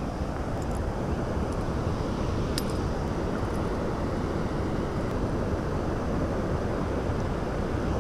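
Steady rushing of water over river rapids, with a faint click about two and a half seconds in.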